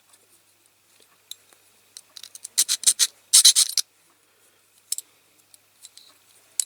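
A small hand file rasping on a metal pin of a die-cast toy, in two short bursts of quick strokes about two and a half and three and a half seconds in, with light scratches and clicks between.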